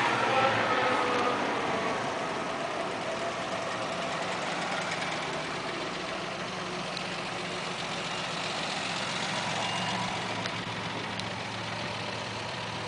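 Vintage cars driving past one after another in a slow convoy, engines running. The loudest passes by at the start, its engine note falling as it moves away, then quieter engines follow.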